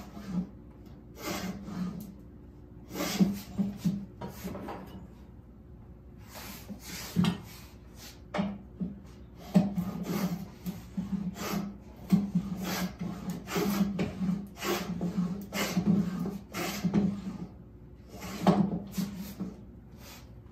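Hand rabbet plane cutting a rabbet along a wooden frame strip: a run of short, quick strokes, each a brief rasping hiss as the blade takes a shaving, some coming several in a row. The strokes stop shortly before the end.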